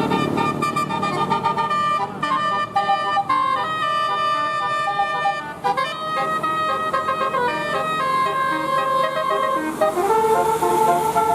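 Basuri telolet bus horn, a set of air-horn trumpets playing a tune: several horn tones sound together and jump from note to note in quick steps, with a few brief breaks.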